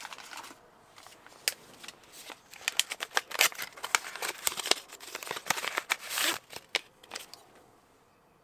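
A plastic parts packet being opened and handled: bursts of crinkling and sharp clicks, busiest in the middle, then quiet near the end.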